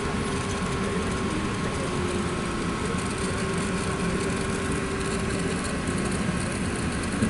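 Steady cabin noise inside a parked Airbus A380: an even rush of ventilation air with a faint steady hum.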